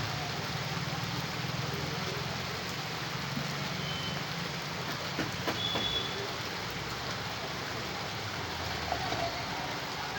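Steady rain, heard as an even hiss over a low steady hum, with a few brief high chirps and light clicks around the middle.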